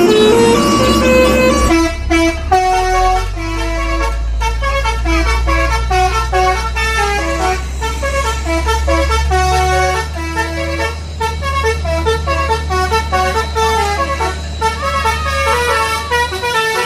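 Bus telolet basuri horn playing a tune in quick stepped notes, over a steady low engine hum.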